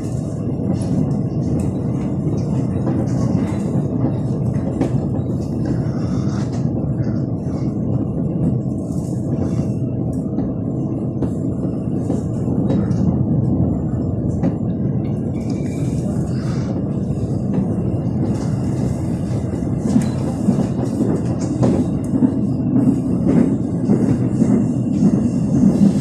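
Inside the carriage of a Korail Gyeongui–Jungang Line electric commuter train running between stations: a steady rumble, with frequent short clicks and clatter from the wheels and track.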